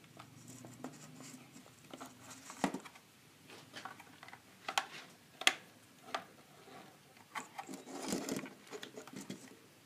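Irregular small clicks and scrapes of a screwdriver working the terminal screws of a plastic motion sensor, the housing being handled on a wooden table. There is a short burst of rubbing about eight seconds in.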